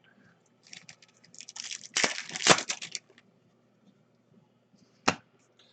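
Trading cards and foil pack wrappers being handled during a card box break: a run of quick crinkling and crackling clicks for about two seconds, then a single sharp click near the end.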